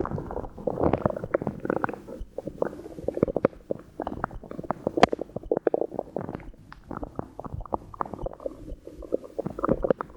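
Human stomach gurgling and bubbling: a dense, irregular run of small pops and clicks over a watery gurgle, from drunk water and swallowed air moving through the belly. It thins out for a moment a little after the middle, then picks up again.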